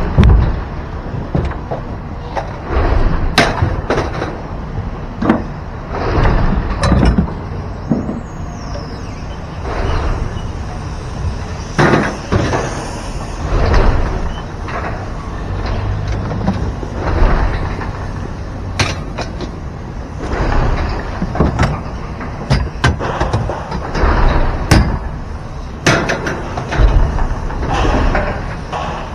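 Truck running with a steady low rumble, with frequent irregular clunks and rattles every second or two.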